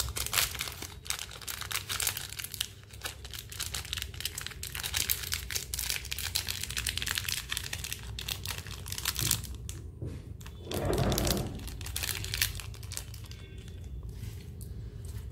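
Thin clear plastic packaging crinkling and tearing as it is pulled open and handled, a dense crackle for the first nine seconds or so, then fainter, sparser rustling with one brief duller rustle a little past the middle.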